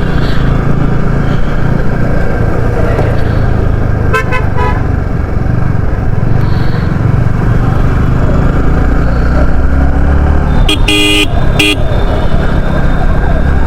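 Yamaha R15 single-cylinder motorcycle riding in traffic, its engine and wind noise steady on the mic. A vehicle horn honks briefly about four seconds in, then twice close together around eleven seconds.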